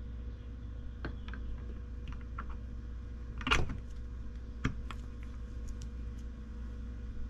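Scattered small metallic clicks and knocks as greased gears and bearings are pressed into place inside the opened housing of a Bafang M620 mid-drive e-bike motor, over a steady low hum. The loudest knock comes about three and a half seconds in.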